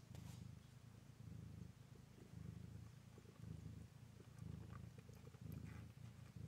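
Domestic cat purring softly while nursing her kittens, a low buzz that swells and eases about once a second with each breath.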